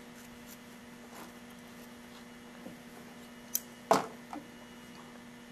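Steady low electrical hum, with a quick click and then a louder knock about four seconds in, and a faint tap just after, from small tools and materials being handled at a fly-tying vise.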